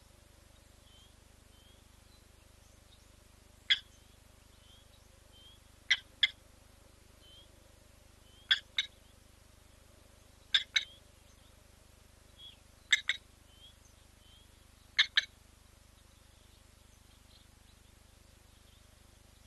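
Blacksmith lapwing giving its sharp metallic 'tink' call: a single clink, then five quick double clinks about two seconds apart. Faint short high chirps sound between them.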